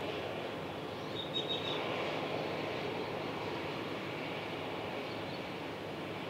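Steady outdoor background rumble, like distant vehicle or aircraft noise, with a few short high chirps about a second in.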